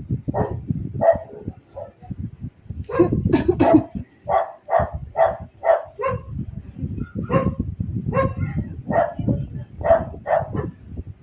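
A dog barking repeatedly in runs of short barks, about two a second at the steadiest stretch.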